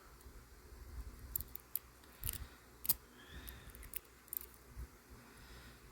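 Lock pick and tension wrench working the pin stack of a Defiant pin-tumbler padlock: scattered light metallic clicks and scrapes, the sharpest about three seconds in.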